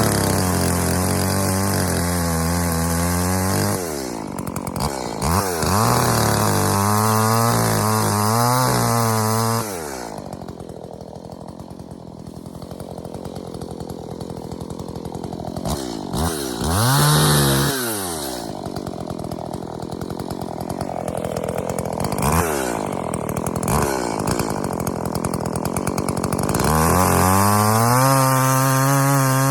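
Two-stroke chainsaw run up to full throttle in long bursts, its pitch wavering as it works through fallen ash wood, dropping back to idle for a long spell in the middle with one short rev.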